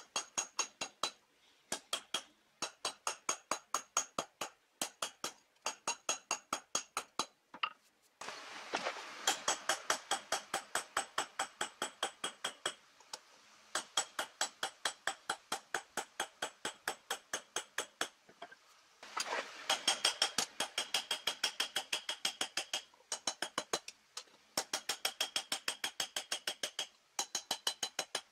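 Hand hammer beating a red-hot steel bar on an anvil while it is forged: quick ringing blows, several a second, in runs of a few seconds with short pauses between.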